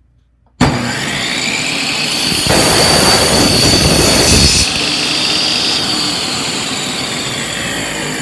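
Table saw switched on about half a second in, the motor spinning the blade up with a rising whine. The blade then cuts through a wooden board for about two seconds, louder and noisier, before running on freely at speed.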